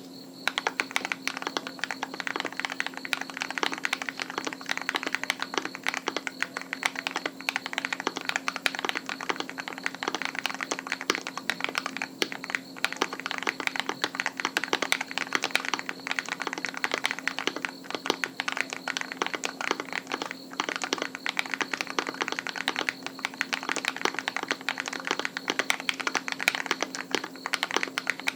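Continuous fast typing on a custom 60% keyboard (KBDFans Tofu60 with an aluminium plate) whose letter keys are lubed KTT Red Wine linear switches. It is a dense, irregular run of keystroke clicks with occasional larger keys mixed in, starting right at the beginning.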